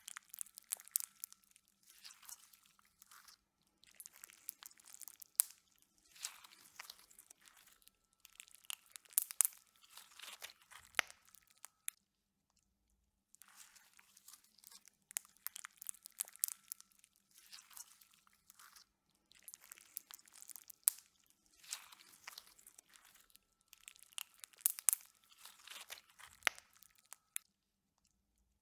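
Slime being squished and worked, making dense crackling and popping in bursts of a second or two, with a short silent break about twelve seconds in and again near the end.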